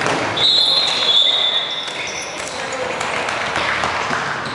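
Dodgeball players' sneakers squeaking on a wooden sports-hall floor as they sprint and pull up, the loudest a long high squeal just after the start. Players shout and dodgeballs thud, with the sound carrying around the large hall.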